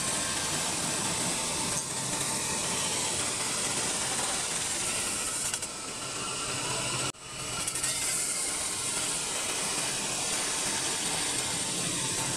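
CNC double-roller metal spinning machine running: the forming rollers press against the spinning sheet-metal workpiece, giving a steady hiss over a mechanical hum. The sound cuts out for a moment about seven seconds in and then returns.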